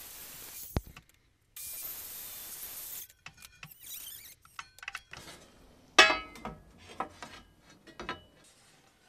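Two short spells of steady hiss, then scattered clicks and knocks of cut sheet-steel pieces being handled, with one loud ringing metallic clank about six seconds in.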